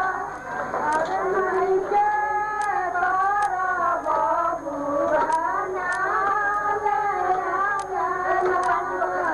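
A high-pitched voice singing a flowing, melodic line without a break, with a sharp tick now and then.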